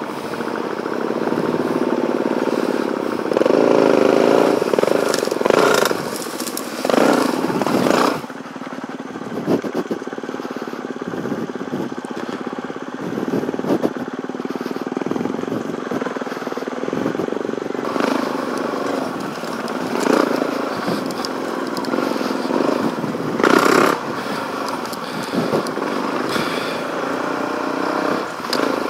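Suzuki DR-Z400E dirt bike's single-cylinder four-stroke engine running steadily over rough trail. Several sharp knocks and clattering hits from the bike on the rough ground are spread through it, the loudest about two-thirds of the way in.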